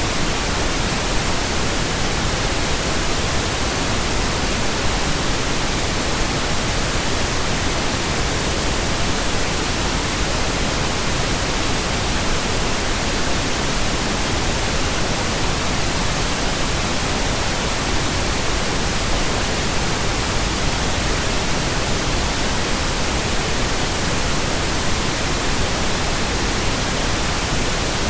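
Steady synthetic pink noise: a constant, even hiss that never changes.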